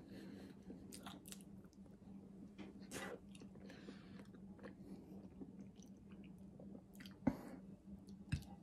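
A person chewing and biting a soft peeled banana, eating it with the mouth only: faint, scattered wet mouth and chewing noises, with a couple of short knocks about seven and eight seconds in.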